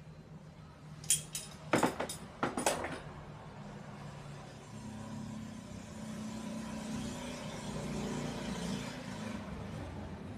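A few sharp clicks, then the Sharp washing machine's spin-dryer motor running with a low hum and a whir that builds over several seconds.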